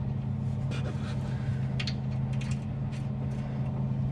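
A steady low hum runs throughout, under a scatter of light metallic clicks and clinks from a nut and hand tools being worked onto the lower mount of a front air shock.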